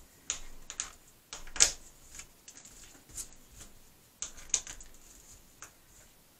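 Irregular sharp clicks and light scrapes as the end of a flux brush picks and flicks small solder globs off a stained glass panel. The loudest click comes about one and a half seconds in.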